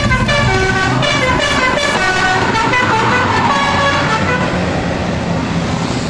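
A tour bus's melodic "basuri" horn plays a tune of quick notes that step up and down in pitch, over the low, steady hum of the bus's engine.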